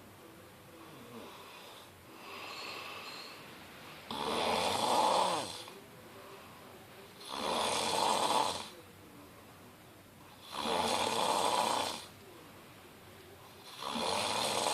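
A man snoring in slow, regular breaths: a faint snore about two seconds in, then four stronger snores about three seconds apart, each lasting around a second and a half.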